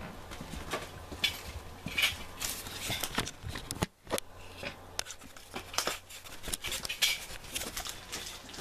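Handling noise from a hand-held camera being picked up and carried: rustling with scattered sharp clicks and knocks. The sound drops out briefly a little before four seconds in.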